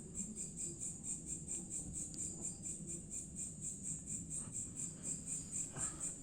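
An unidentified insect calling with a high-pitched pulsing trill, about five pulses a second. The call is loud and buzzing, likened to a water pump, and not like a cricket's chirp.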